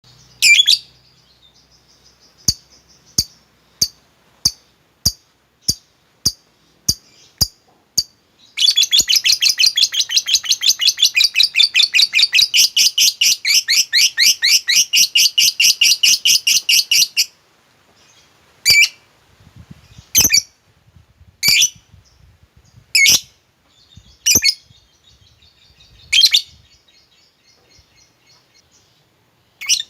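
Lovebird calling. First comes a run of short sharp chips, about two a second. Then comes a long, fast ngekek trill lasting about nine seconds, followed by loud single shrieks a second or two apart.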